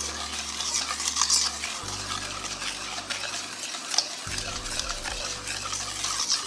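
Cake batter being stirred in a bowl with a utensil: a continuous scraping, swishing noise broken by small clinks and scrapes.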